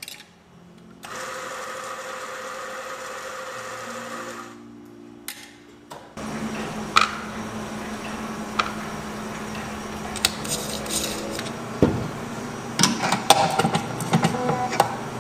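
Mazzer espresso grinder motor running for about three seconds as it grinds coffee into a portafilter. After it stops, a steady hum continues under sharp metallic clicks and knocks of the portafilter and tools, growing busier near the end as the dose is weighed, leveled and tamped.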